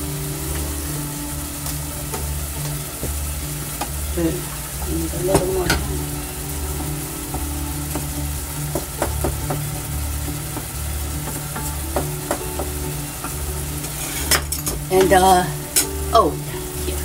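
Tomatoes and ginger sizzling in hot oil in a pan while they are stirred, with scattered clicks and scrapes of the utensil against the pan, busiest about four to six seconds in and again near the end. A steady low hum runs underneath.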